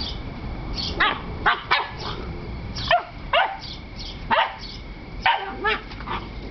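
Cane Corso puppies barking and yipping at each other in play: about eight short, sharp yips spread over a few seconds, each dropping quickly in pitch.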